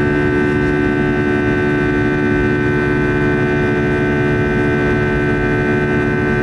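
Airbus A320's CFM turbofan engines heard from inside the cabin during the climb after take-off: a steady buzzing drone made of several held tones over an even rushing hiss.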